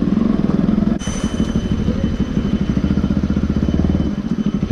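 Bajaj Pulsar NS200's single-cylinder engine running with a fast, even pulse as the bike picks its way over a rough, rocky dirt track, with some clatter. The sound changes abruptly about a second in.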